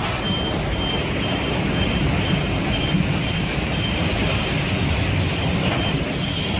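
Steady, loud rushing of heavy rain and running floodwater in a street, with a low rumble of traffic underneath.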